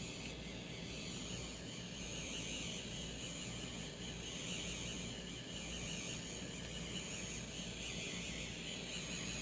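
A 3D pen's small feed motor whirring steadily as it pushes PLA filament through the heated nozzle, giving a thin, high-pitched whine.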